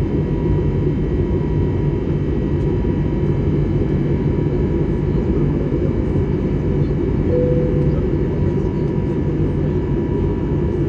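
Steady low drone inside the cabin of an Airbus A321neo in flight, the engines and airflow running evenly, with a faint steady tone over it.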